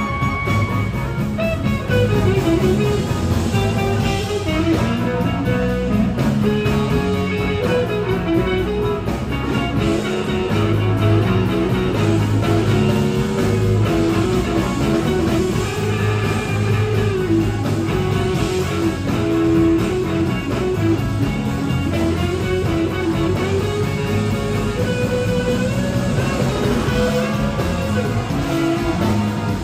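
Live blues-rock band playing, led by two electric guitars, heard from the audience.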